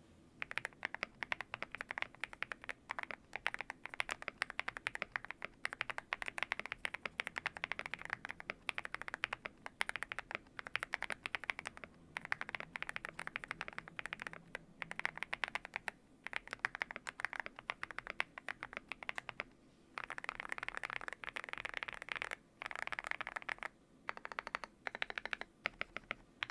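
Typing on a Yunzii YZ98 mechanical keyboard with lubed Gateron Smoothie linear switches and XDA-profile keycaps, a steady stream of keystrokes. The case is tape-modded and foam-dampened. Past the two-thirds mark the typing comes in faster, denser runs.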